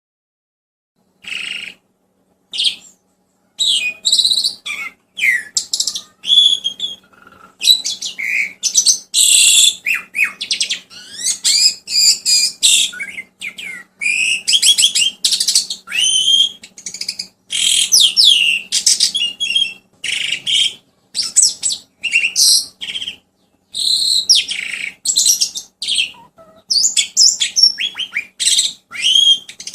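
A songbird singing a rapid, varied run of chirps, whistles and trills in short bursts with brief gaps, over a faint steady low hum. It is a masteran, a recorded song played to tutor young starlings into long chattering.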